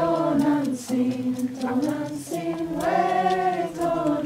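A group of voices singing a slow chant together in long held notes; a fuller phrase begins a little past two seconds in.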